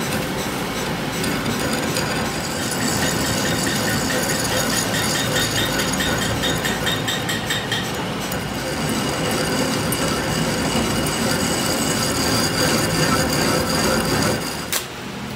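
Lathe turning a truck's steel rear axle tube while the tool bit cuts the end of the tube: a steady grinding scrape of metal on metal with a high squeal over it. It stops abruptly with a click near the end.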